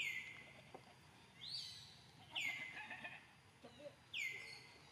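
A bird calling repeatedly outdoors, about four times: each call is a short, high note that drops quickly in pitch and then holds briefly.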